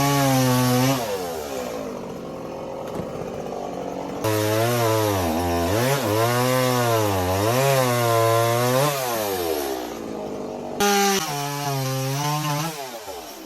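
Stihl two-stroke chainsaw running and cutting wood, its engine pitch dipping and recovering again and again as the chain bites in and pulls free. It drops back to a quieter, lower running stretch between about one and four seconds in, then jumps back to full throttle.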